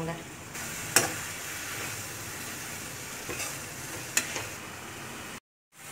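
Mint leaves frying in oil in a kadai as a spatula stirs them: a steady sizzle with stirring, and two sharp clinks of the spatula on the pan, about a second in and again about four seconds in. The sound cuts out briefly near the end.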